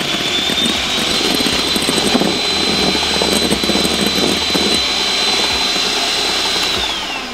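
Electric hand mixer whipping egg whites in a glass bowl, the motor whine rising as it speeds up in the first second, holding steady over the churning beaters, then dropping as it slows near the end.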